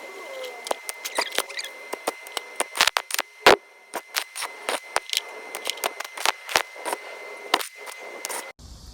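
Irregular light clicks and knocks of hard objects being handled, one sharper knock about three and a half seconds in, over a faint steady high tone; the sound cuts off shortly before the end.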